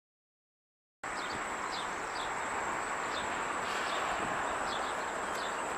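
Silent for about the first second, then steady outdoor background noise with short bird chirps repeating over it and a thin, high, steady whine.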